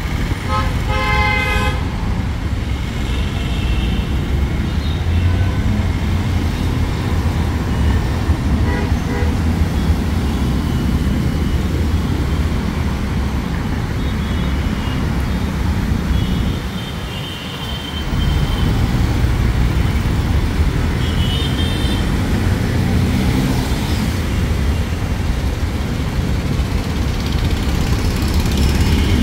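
Dense road traffic on a busy Indian street: engines running steadily close by, with vehicle horns honking again and again. The most prominent is a horn blast about a second in.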